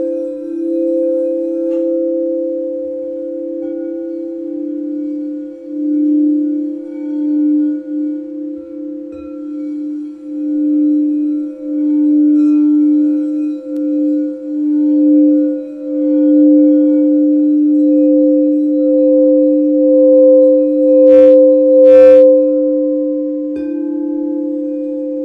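Crystal quartz singing bowls sounding together: a lower and a higher sustained tone that pulse and swell in waves. Near the end, two quick bright strikes of a bell ring out over them, about a second apart.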